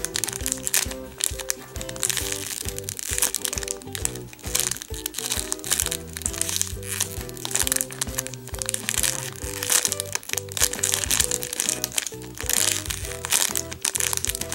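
Clear plastic packaging bag crinkling as a foam squishy toy is squeezed inside it, with background music playing throughout.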